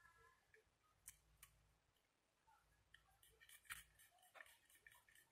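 Near silence, with faint scattered clicks and light taps of paper and a glue pen being handled as a paper strap is glued and pressed down by hand.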